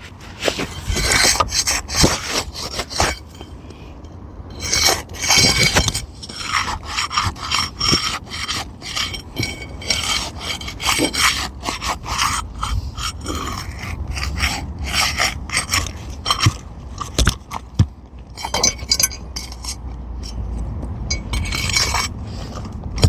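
A flat pry bar scraping and rubbing against asphalt roof shingles in many short, irregular strokes as it is worked under the shingle to pop the roofing nails loose.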